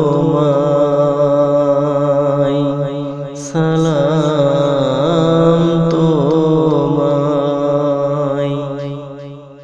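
Closing bars of a Bangla Islamic gojol: a wavering, wordless vocal melody over a steady low drone. It breaks off briefly about three and a half seconds in, then fades out near the end.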